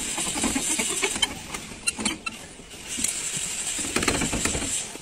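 Light metal clicks and taps of a screwdriver and hands on truck alternator parts clamped in a steel bench vise, over a steady running vehicle engine that eases off briefly midway.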